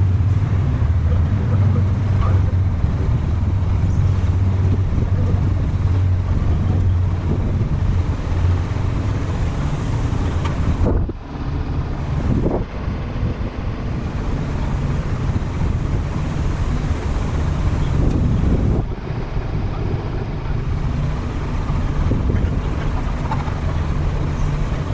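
Kubota SVL75-2 compact track loader's diesel engine running steadily, with a few brief dips in its sound around the middle.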